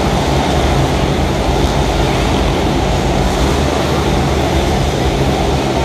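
Motorcycle engines running hard inside a steel-mesh globe of death, a steady loud engine noise with no breaks.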